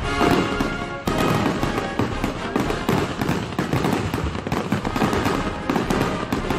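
Fireworks finale barrage: aerial shells bursting in rapid, overlapping bangs and crackles, many a second, with no let-up.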